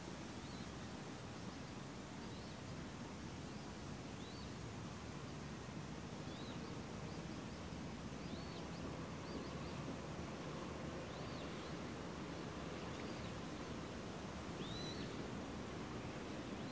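Faint outdoor ambience: a steady low background noise with short, high chirps from a distant bird every second or two.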